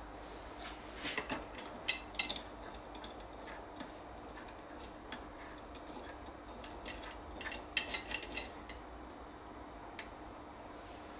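Socket ratchet wrench clicking as it turns a bolt on a wooden frame, in two runs of quick clicks, one about a second or two in and another about seven to eight seconds in.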